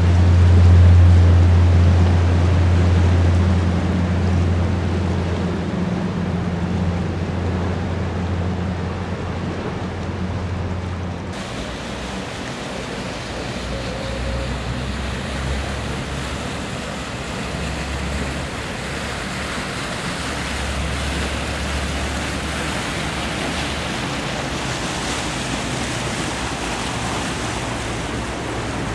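Low engine drone of a passing river tour boat under a steady rush of wind and outdoor noise. The drone is strongest in the first third and drops off abruptly about eleven seconds in, after which a fainter, uneven low rumble continues.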